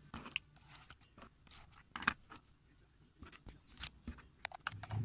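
Soft clicks and taps of plastic gel pens being handled and laid down on a notebook and desk, a scatter of quiet short knocks.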